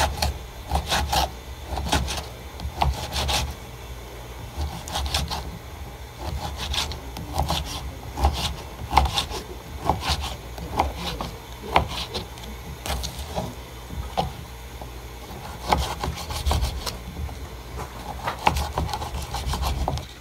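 Knife cutting through carne seca (dried salted beef) in repeated, uneven rubbing strokes.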